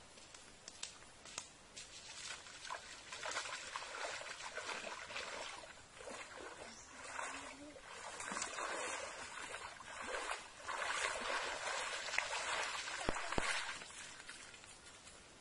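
Feet wading through shallow muddy water, splashing and sloshing in uneven swells.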